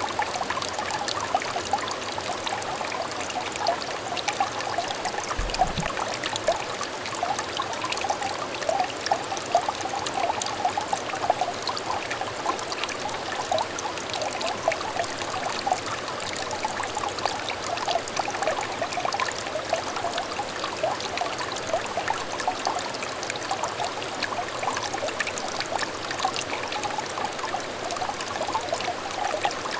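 A small clear stream trickling and babbling steadily, a continuous patter of tiny splashes and bubbles.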